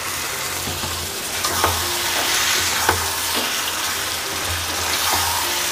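Marinated chicken sizzling in hot oil and fried masala in a pan as it is stirred, with a few sharp clicks of the spoon against the pan about a second and a half and three seconds in.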